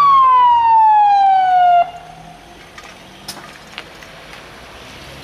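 Ambulance siren sounding a single loud falling wail that drops in pitch for about two seconds and then cuts off suddenly, leaving quiet street background with a couple of faint clicks.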